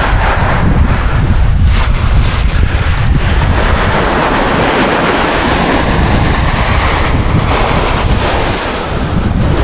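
Wind buffeting the microphone with a heavy low rumble, over small waves washing up onto a sandy beach.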